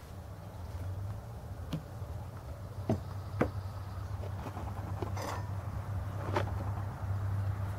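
About five light knocks and clinks of camp cook gear being handled, scattered over a steady low hum.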